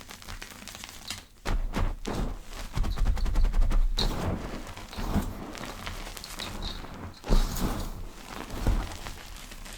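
Powder being crushed and squeezed by hand close to the microphone, giving soft crackles of rapid small clicks broken by several dull thuds.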